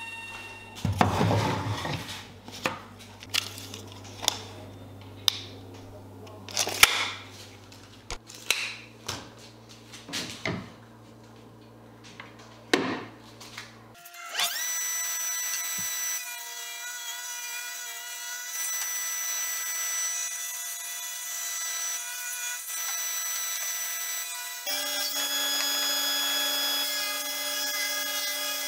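A string of sharp, irregular knocks and clatters over a low hum, then a Powermatic table saw running steadily from about halfway. Near the end its pitch drops and the noise rises as the blade rips a strip off a pine board.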